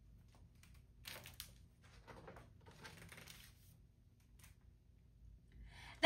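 Faint rustle of a picture book's paper page being turned, from about a second in until past halfway, with a small click.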